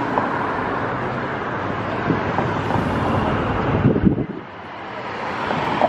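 Wind buffeting the microphone over steady street traffic noise. About four seconds in, a louder burst of wind rumble cuts off sharply, and the noise then slowly builds back.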